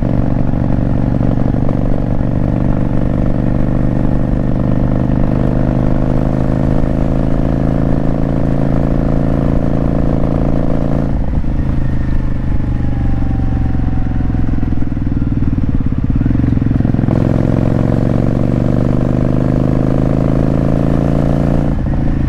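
Kawasaki Vulcan VN750 V-twin motorcycle engine running under way. Its note dips about eleven seconds in and slowly falls, then climbs again from about seventeen seconds, with another break near the end as the engine speed changes.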